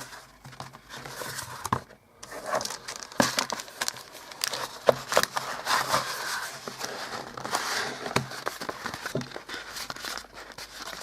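Cardboard being bent and folded by hand, with irregular crackling and creasing noises and handling clicks. There is a short lull about two seconds in.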